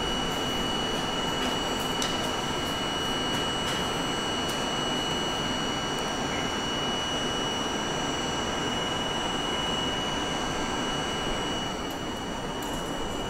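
Interior of a standing R42 subway car: a steady hum and hiss from its onboard equipment with a high, unchanging whine over it and a few light clicks.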